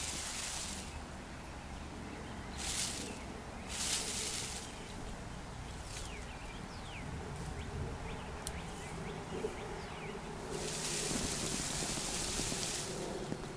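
A mulberry branch being shaken by hand: leaves rustle in short bursts, with the longest and loudest about ten seconds in, as berries drop onto a canvas catching sheet hung beneath.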